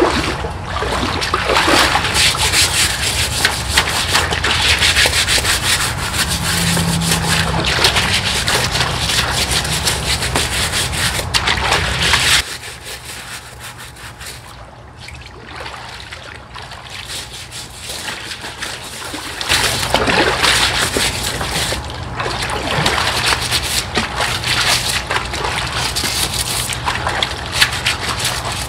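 Hand scrubber rasping over a koi pond's liner under shallow water, scrubbing off green algae in repeated strokes, with water splashing and sloshing around the hands.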